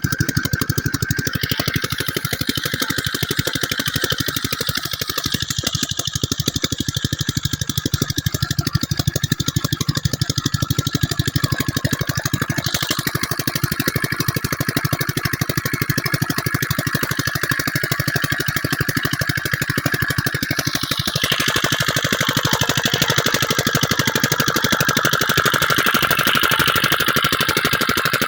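An 8.5 hp single-cylinder diesel engine on a water pump set running steadily, with a fast, even chug of firing strokes. About two-thirds of the way in it grows a little louder and brighter.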